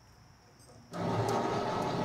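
Electric winch on a log-loading trailer arch starting suddenly about a second in and running steadily, hauling in cable to hoist a heavy log by a chain.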